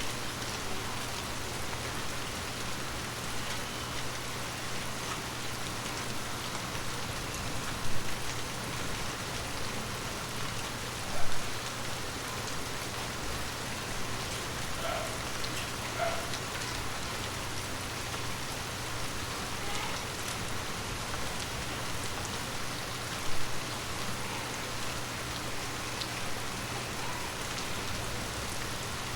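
Steady rain falling on forest leaves, a dense even patter of drops. A few heavier drops land close by, standing out above the rain three times.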